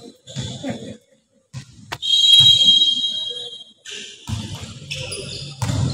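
A referee's whistle gives one long, shrill blast about two seconds in, the loudest sound here. Voices in the hall come before and after it.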